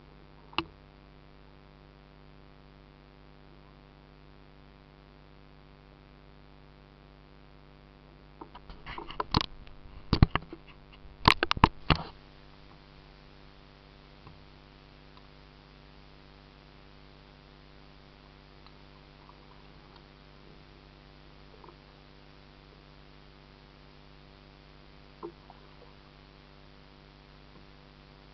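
A cluster of sharp knocks and rattles on the kayak hull, about nine to twelve seconds in, over a faint steady hum.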